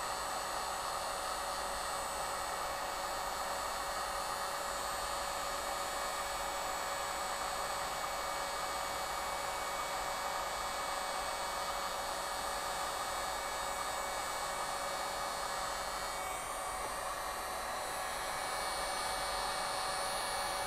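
WEN model 2020 dual-temperature heat gun running on its low setting (number 1), a steady blowing hum with a few held tones, heating heat-shrink tubing. Its sound shifts slightly about three-quarters of the way through.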